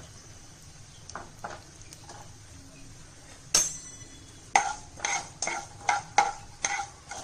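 Metal slotted spatula stirring mustard seeds in oil in a nonstick kadai, striking and scraping the pan. A few faint clicks come first, then one sharp clang about three and a half seconds in. From about four and a half seconds a rhythmic run of ringing strokes follows, two or three a second.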